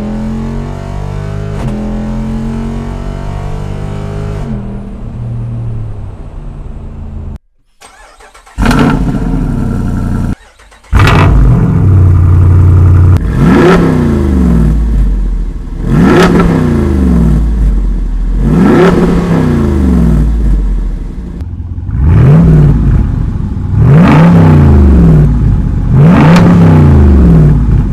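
Jeep Wrangler Rubicon 392's 6.4-litre V8 exhaust, loud. It holds a steady engine note for the first several seconds, then after a brief break is revved repeatedly, about six quick rises and falls in pitch a couple of seconds apart.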